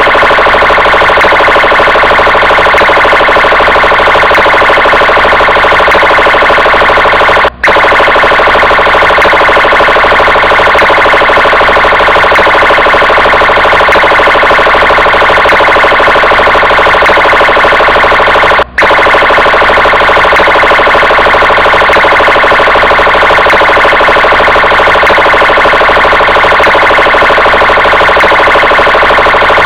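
Police car siren sounding continuously, loud and steady in pitch. It cuts out for an instant twice, about 11 seconds apart.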